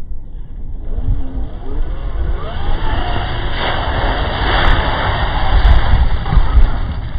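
Radio-controlled Traxxas TRX4 crawler's brushless motor and drivetrain whining, rising in pitch as the truck speeds up, then its tyres splashing through a muddy puddle from about halfway in.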